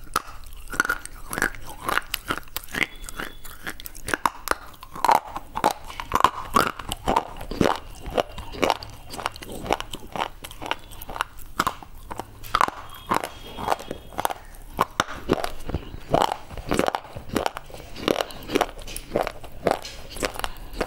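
Close-miked biting and chewing of a white slate bar (pressed clay slate): a quick, irregular run of sharp, dry crunches, about two to three a second.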